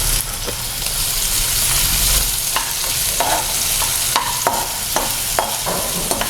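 Chopped onion sizzling in hot oil in a kadai, with a spatula stirring and scraping it: short scraping strokes about twice a second start a couple of seconds in over the steady sizzle.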